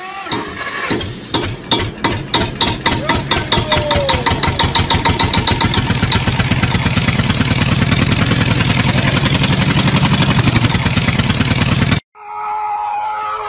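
Engine running and revving up, its beats starting slow and speeding up steadily into a fast run, then cutting off abruptly near the end.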